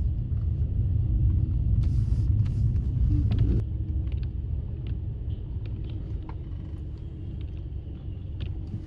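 Car driving, heard from inside the cabin: a steady low road and engine rumble that eases down a few seconds in.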